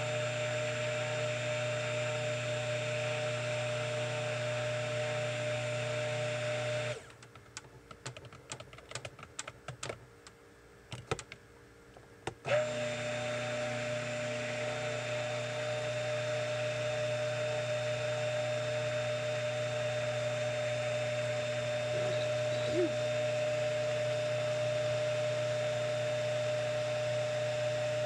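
Stick blender running steadily in soap batter of oils and lye, blending it up to a medium-thick trace. It stops about seven seconds in, a few light clicks and knocks follow, and it starts again about five seconds later and runs on.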